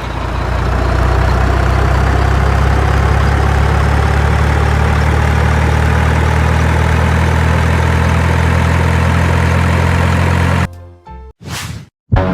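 Cartoon sound effect of a heavy construction vehicle's engine running steadily, with a faint whine that rises slowly, then cutting off abruptly near the end, followed by a brief swish.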